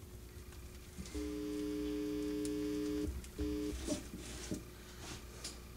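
A steady electronic-sounding tone held for about two seconds, starting and stopping suddenly, then a short repeat. Afterward come light rustles and clicks from broom bristles and wire being handled.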